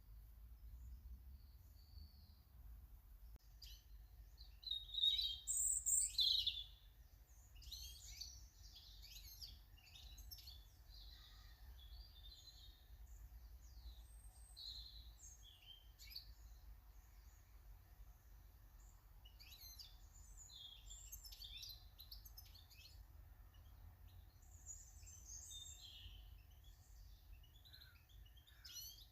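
Small garden birds chirping and singing, a run of short high calls and trills throughout, with one loud close burst about five seconds in, over a faint low steady rumble.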